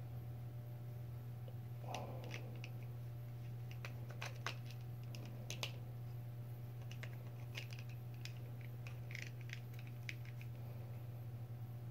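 Light irregular clicks and taps of small RC parts being handled as a Losi SCTE 3.0 rear differential is worked into the keyed slots of its diff housing, over a steady low hum.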